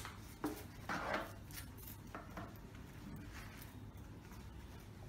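Light clicks and rubbing of hard plastic as the main unit of an OKM EXP 6000 ground scanner is handled and its parts fitted: a few short clicks in the first two seconds, then only a faint low hum.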